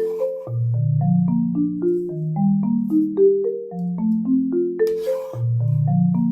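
Background music: a light, bouncy melody on marimba-like mallet notes over a bass line.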